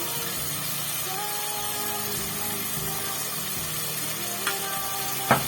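Steady sizzling hiss of food frying in a pan, with a sharp clink about five seconds in.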